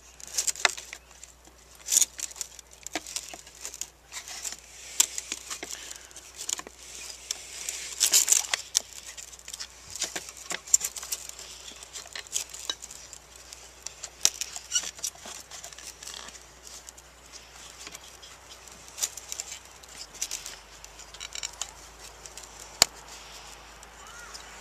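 Hands stretching a rubber boot over the back of a headlight bulb and handling the plastic headlight housing and its wiring: irregular scraping, rubbing and sharp clicks.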